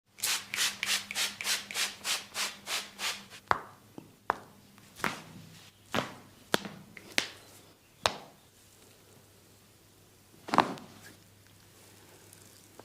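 A barber's hands rubbing and scratching at a fast, even rhythm of about three strokes a second for the first three seconds of a massage. Then come about eight sharp single clicks, spaced out, the loudest a little past ten seconds.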